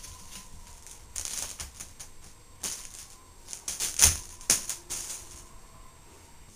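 A Bengal cat scrabbling and batting on a painted wooden newel post: a run of short scratchy rustles and taps, loudest about four seconds in, where a thump comes with it.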